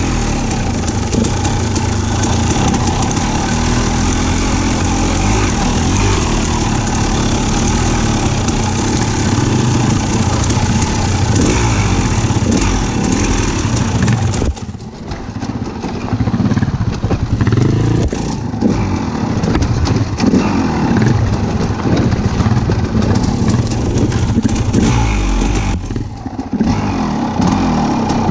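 A motor vehicle's engine running, its pitch rising and falling as it is revved and eased off, with brief drops in level about halfway through and again near the end.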